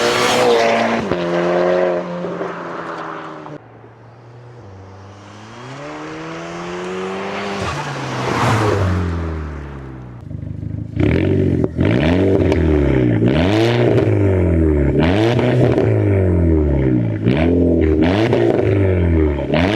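Audi S3's turbocharged four-cylinder engine through an aftermarket exhaust with a sports-cat downpipe, a 3-inch pipe and twin mufflers. It revs and falls away, then runs quieter for a few seconds with one slow rise and fall in pitch. In the last eight seconds it is blipped again and again, about once every second or so, and each rev drops back with a sharp burst of noise.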